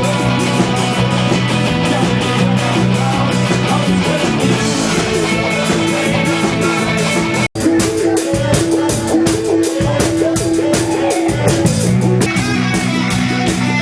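Dance-punk band playing live: drum kit beating steadily under electric guitar and bass. The sound drops out for an instant about halfway through.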